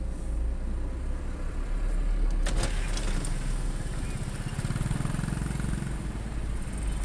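Low, steady vehicle rumble heard from inside a moving car's cabin on a rough dirt road, with a short sharp knock about two and a half seconds in and the rumble swelling a little for a few seconds after it.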